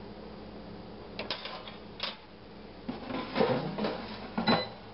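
Air fryer basket being picked up and handled: scattered light clicks and knocks, then louder clattering about three seconds in that ends with a sharp knock.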